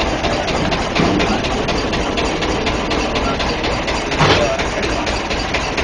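Engine of a small wooden motorboat (pompong) running steadily, heard from inside the boat's cabin. A brief louder thud comes about four seconds in.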